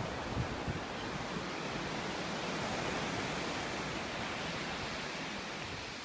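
Small waves breaking and washing up a sandy beach: a steady hiss of surf that swells slightly about halfway through.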